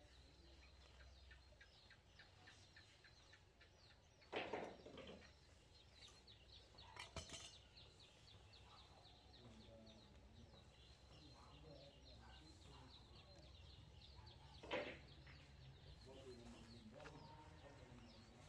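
Near silence: a quiet outdoor background with a faint steady high tone and fine ticking. Two short, louder sounds come about four seconds in and again near fifteen seconds, with a smaller one around seven seconds.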